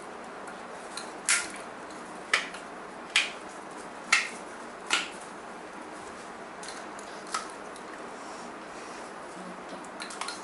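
Five sharp clicks about a second apart, then a few much fainter ticks, over a steady low hiss.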